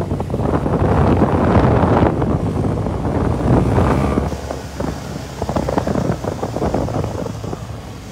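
Wind buffeting the microphone on a moving motorcycle, over the low steady hum of its engine. The rush is strongest at first and eases off in the second half.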